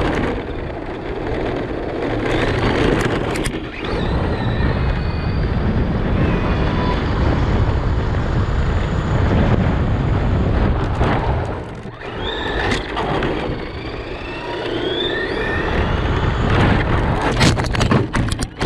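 Lucas Oil RC car driving fast on a street, heard from a camera strapped on top of it: constant road rumble and wind with a motor whine that rises and falls in pitch as it speeds up and slows. There are a few sharp knocks about three seconds in and a cluster of them near the end.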